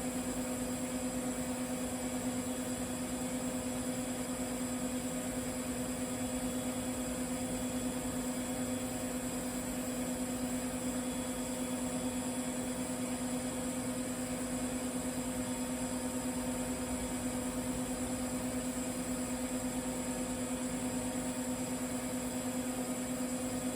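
TIG welding arc running steadily on a carbon-steel pipe root pass with 308 stainless filler: an even electrical buzz with a steady hiss over it.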